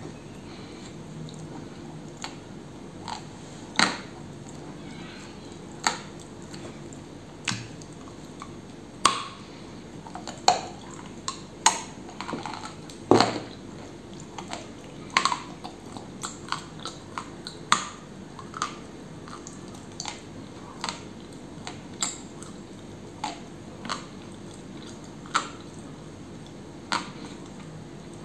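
Close-up crunching and chewing of pressed edible clay with a cream: sharp, irregular crunches every second or two.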